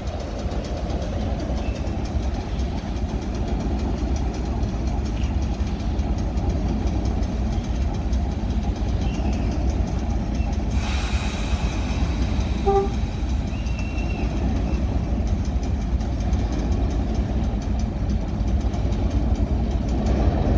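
Diesel locomotive engine idling steadily with a low rumble, with a short hiss about eleven seconds in.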